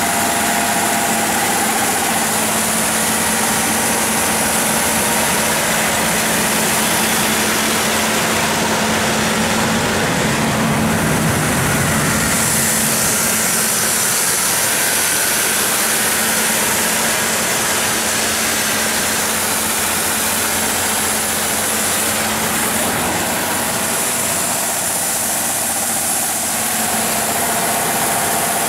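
John Deere 6135HF485 13.5-litre six-cylinder diesel engine of a Baldor 350 kW generator set running steadily, heard close up through the open enclosure door.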